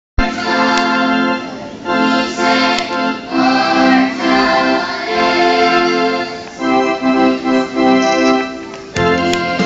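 Electronic keyboard playing a melody in sustained, organ-like notes.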